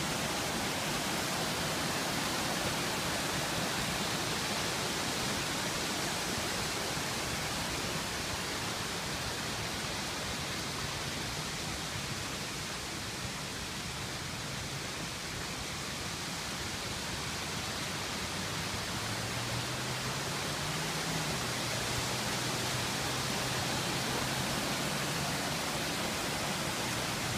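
Steady rushing of floodwater, a dense even hiss that eases slightly midway. A faint low hum comes in about two-thirds of the way through.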